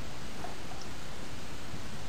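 Steady hiss of room tone and recording noise, with no distinct sounds.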